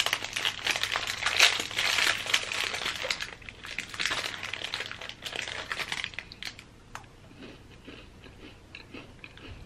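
Crinkling of a thin plastic cookie wrapper as a butter cookie is unwrapped by hand. It dies down about six and a half seconds in, leaving only faint small rustles.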